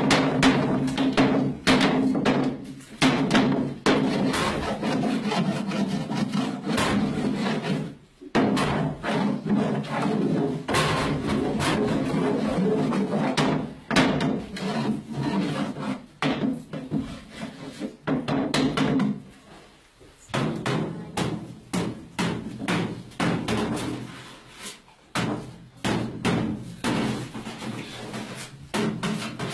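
A dense, irregular run of knocks and scrapes, broken by short pauses about eight and twenty seconds in.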